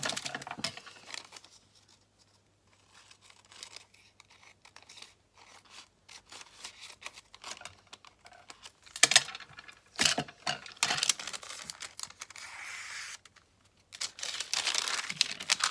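Scissors cutting through a sheet of patterned paper in a few sharp snips just past the middle, trimming it square. Near the end the paper rustles and crinkles as it is handled and folded.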